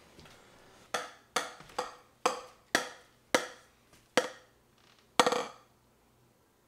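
A series of about eight sharp knocks, each with a short ringing tone, roughly half a second apart, ending in a quick flurry of knocks.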